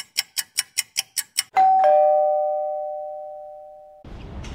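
Rapid, even ticking, about five clicks a second, stops about a second and a half in and gives way to a two-note descending 'ding-dong' chime that rings out and slowly fades. About four seconds in it cuts off suddenly to a steady noisy background.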